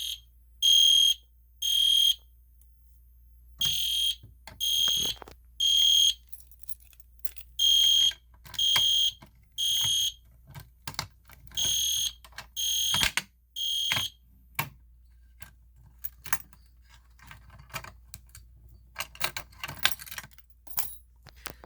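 EST Genesis G1-HDVM horn strobe sounding the temporal-three evacuation pattern after the pull station is pulled: three short high-pitched horn blasts, a pause, repeated five times. The horn cuts off about 14 seconds in, followed by a run of light clicks and taps.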